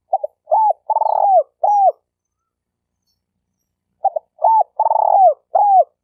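Spotted dove (terkukur) cooing: two identical call phrases about four seconds apart. Each opens with a quick stammered double note, then runs through a few arched coos with a longer rolling coo in the middle. This is the 'stuttering' (gagap) terkukur call used as a lure call.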